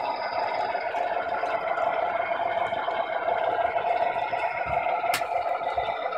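O gauge model train running on the layout track: a steady drone from the model diesel locomotives, with one sharp click about five seconds in.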